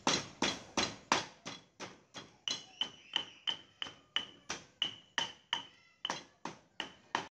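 Stone pestle pounding a spice paste in a stone mortar, a steady run of strikes close to three a second. For a run of strikes in the middle, each one has a short ring.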